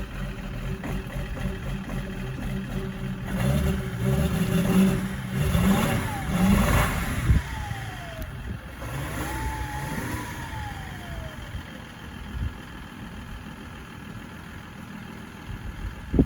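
BMW X5 E53's 3.0-litre M57N inline-six diesel running just after a cold start, misfiring. Engine speed rises about four to seven seconds in, then drops back to a steady idle.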